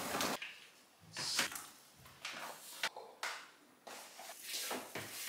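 Cooked moi moi pouches, plastic bags of steamed bean pudding, lifted out of a pot and set into a plastic bowl: a string of short rustles and soft knocks with brief pauses between them.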